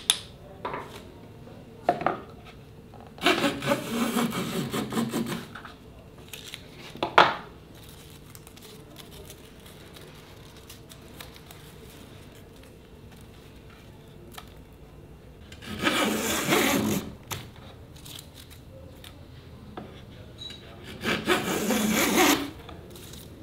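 Wooden hand plane cutting along a board in three long strokes, the first about a few seconds in and two more near the end, with a few sharp knocks of wood between them.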